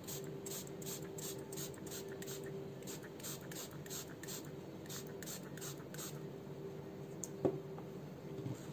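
Pump spray bottle of Mirror Effect paint spritzing onto a glass pane in quick repeated sprays, about three a second, stopping about six seconds in. Then a single knock as the bottle is set down on the wooden table.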